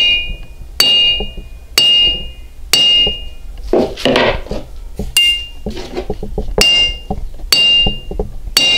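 A hammer striking a small homemade steel anvil with a forge-hardened face, about seven blows roughly a second apart. Each blow leaves a short high-pitched ring. A brief scraping clatter comes about four seconds in.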